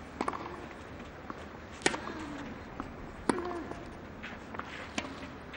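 A tennis rally on a clay court: four sharp racket-on-ball strikes, about a second and a half apart.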